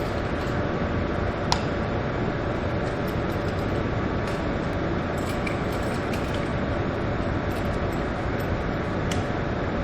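Steady machinery noise with a constant low hum, typical of plant equipment running, with a couple of light clicks or taps about a second and a half in and near the end.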